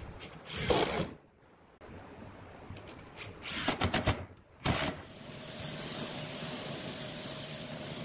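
Electric drill driving screws into pine chair arms in short bursts: one about half a second in, then a stuttering run of bursts around three and a half to four and a half seconds. From about five seconds a steady high hiss of an air spray gun takes over.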